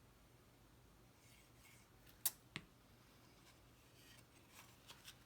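Faint rustling of cardstock as a pop-up card is folded closed and handled, with two sharp clicks about a third of a second apart a little past two seconds in and a few softer ticks near the end.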